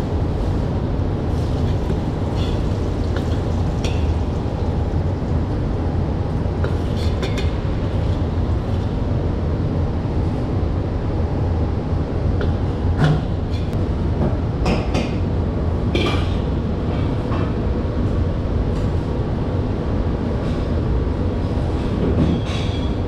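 Steady low roar of commercial kitchen equipment, with a few sharp clinks of metal utensils and dishes scattered through it.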